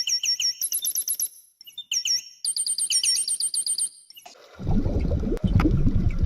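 A bird chirping rapidly, about five short high chirps a second, in two runs of a second or two each. Near the end a louder, low, rough noise takes over.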